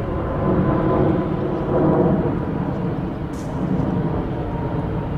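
Boeing 737-300 jet's CFM56-3 turbofan engines running at taxi power as the aircraft lines up on the runway: a steady low rumble with a faint steady whine.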